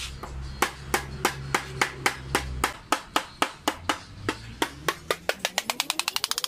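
Metal hand tool striking along the metal header edge of a radiator core in sharp, regular metallic taps, about three a second, that quicken into a fast roll near the end. A low hum runs underneath for the first two seconds or so.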